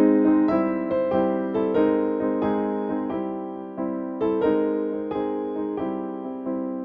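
Background music: a gentle electric piano melody, notes struck about twice a second and fading after each.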